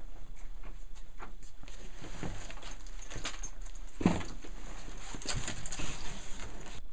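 Scattered footsteps, shuffling and small knocks as people walk into a small room and sit down on a couch, with a brief falling vocal sound about four seconds in.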